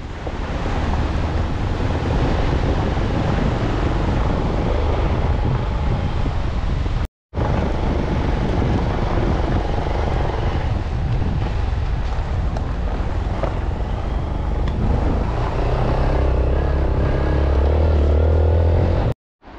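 A vehicle running on the road, heard from on board: a steady low rumble with road noise, heavier near the end. It is broken by a brief dropout about seven seconds in.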